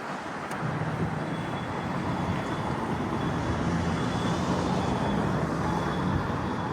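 Road traffic at an intersection: vehicle engines and tyre noise, growing louder about half a second in and holding steady. A faint high steady whine runs through most of it.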